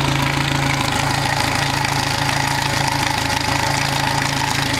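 Yamaha 90 hp four-stroke outboard, a four-cylinder engine, idling steadily on a hose-fed flushing muff, with water splashing off the lower unit.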